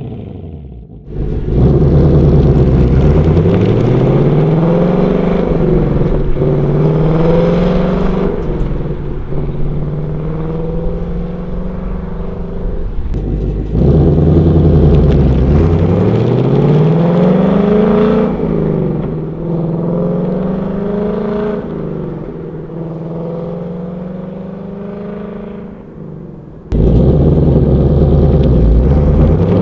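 2024 Ford Mustang Dark Horse's 5.0 L Coyote V8 exhaust, running through a combined H/X-pipe in place of the resonators, under hard acceleration. Its pitch climbs steeply, then falls back in steps at the upshifts. This happens three times, starting about a second and a half in, about fourteen seconds in, and again near the end.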